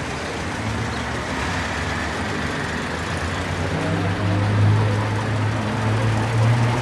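Street traffic noise with a car engine drawing up close, its low steady hum swelling about halfway through and staying loudest to the end: an old GAZ-24 Volga sedan pulling up and idling.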